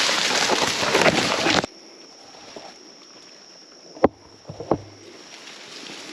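Hunters pushing on foot through swamp undergrowth: loud rustling and swishing that cuts off abruptly about a second and a half in. It gives way to a quiet background with a faint steady high hiss, broken by two sharp snaps about four and four and a half seconds in.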